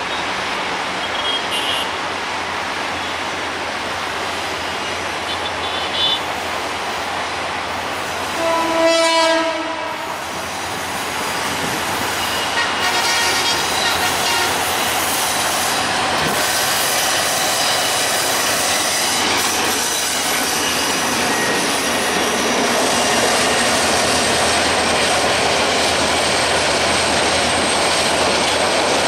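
A GM-EMD GT18L-2 diesel locomotive hauling a metre-gauge passenger train around a curve, running steadily and growing louder as it nears and passes. Its horn sounds once, for about a second, some nine seconds in. Faint wheel squeal follows on the curve.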